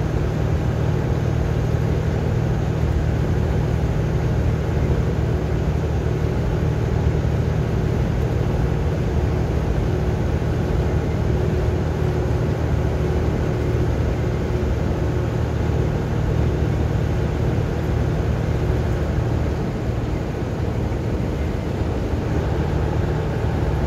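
Steady low drone of engine and tyre noise inside a vehicle's cabin while cruising at highway speed.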